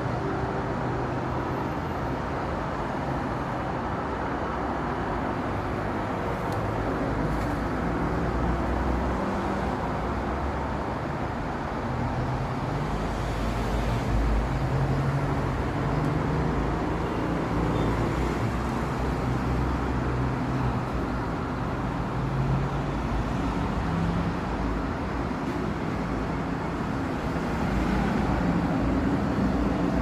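Steady outdoor traffic noise, with vehicle engines running and passing and the low engine hum swelling at times.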